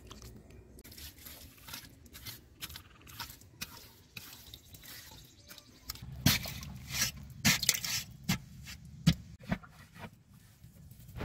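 Hands digging and scraping in wet mud, with small squelches and drips. From about six seconds in, a run of louder wet squelches and thuds.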